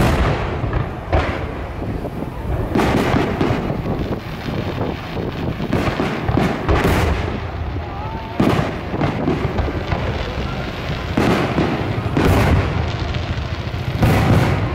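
Aerial firework shells bursting in a run of sharp booms, about ten of them, one every one to two seconds, each trailing off in a short echo over a steady low rumble.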